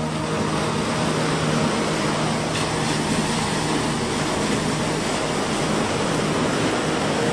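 Sea waves washing on the shore: a steady, even surf noise.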